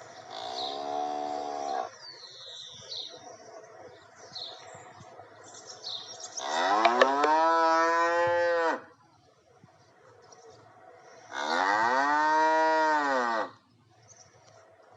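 A cow mooing three times: long calls that rise and then fall in pitch, the first fainter and the last two loud. Birds chirp faintly between the calls.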